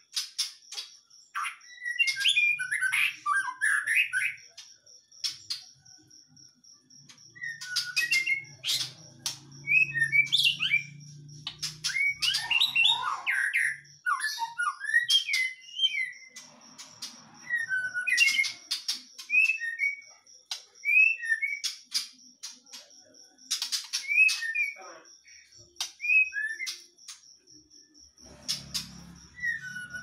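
White-rumped shama (Medan-type murai batu) singing: repeated bursts of quick, varied whistled and chattering phrases with short pauses between them. The song is that of a bird whose voice, in the keeper's words, has not yet 'broken open' into full song.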